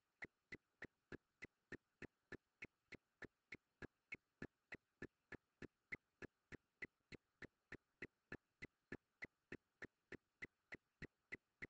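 Faint, even ticking, about three sharp clicks a second, with near silence between them.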